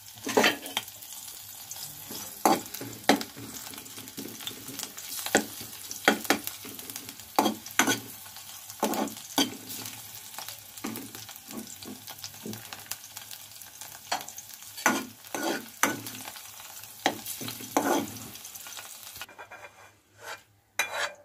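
Ginger juliennes and green chillies sizzling in hot mustard oil in a steel kadhai, stirred with a steel ladle that knocks and scrapes against the pan again and again. The sizzle cuts off suddenly near the end.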